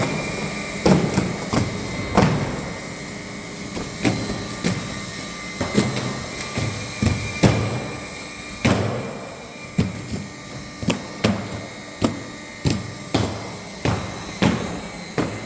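Semi-automatic front feeder on a carton flexo printing line running, with a string of sharp knocks about every half second to a second over a steady machine hum as corrugated board sheets are fed.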